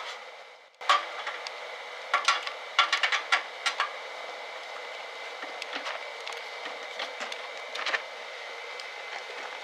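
Clattering and knocking of items being handled around a plastic crate: a quick run of sharp knocks in the first few seconds, then scattered clicks, over a steady hiss.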